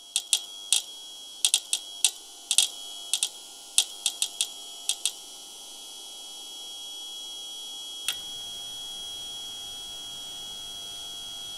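A rapid, irregular run of sharp clicks for about five seconds, then a single click about eight seconds in, over a steady high-pitched tone with fainter tones beneath it that slowly grows louder.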